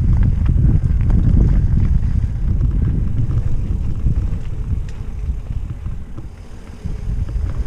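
Mountain bike riding fast along a dirt singletrack: wind rushing over the microphone and tyres rumbling on the dirt, with scattered clicks and rattles from the bike. It eases off for a moment near the end.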